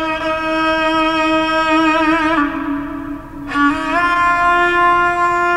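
Slow melody on a violin, long held notes with vibrato, stepping down to a slightly lower note a little before halfway and rising to a higher held note about four seconds in.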